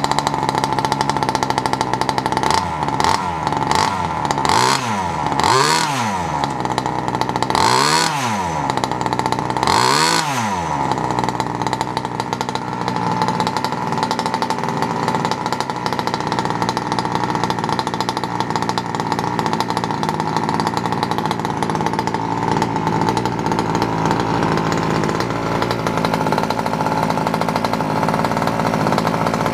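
Small two-stroke petrol engine of a 1/5-scale Yama RC buggy running through a homemade sheet-steel exhaust, blipped quickly to high revs and back about six to eight times in the first ten seconds or so, then left idling steadily. The new exhaust is meant to add back pressure, and the engine is sounding meaty with good throttle response.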